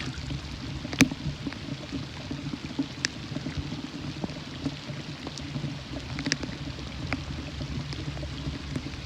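Light rain falling, with scattered drops ticking close by and one sharp click about a second in.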